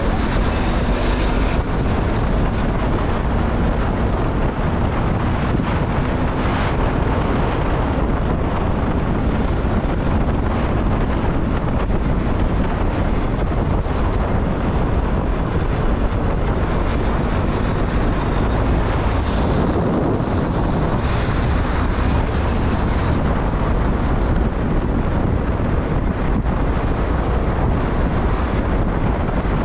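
Steady rumble of a moving vehicle on the road, with wind buffeting the microphone.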